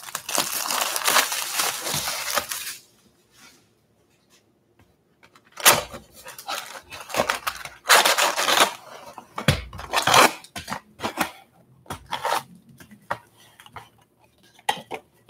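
A sealed baseball-card box being torn open, with a long stretch of ripping and rustling at the start. After a short pause come scattered crinkles of foil card packs and soft knocks as the packs are lifted out and set down in stacks on a wooden table.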